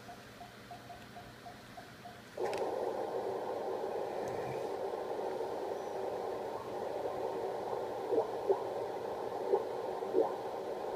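Morse code sidetone from an Elecraft K3 sending a run of dits (the letter E) on 17 m CW, a steady tone pulsing about four times a second, which stops about two seconds in. The rig then switches to receive: shortwave band noise through a narrow CW filter, a steady hiss with a few sharp static crackles in the second half as the receiver is tuned up the band.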